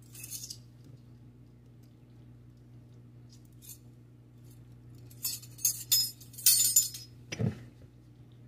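Clinks and scrapes of a utensil against a stainless steel mixing bowl: a brief crackle at the start, a dense run of sharp clatter between about five and seven seconds in, then a dull thump.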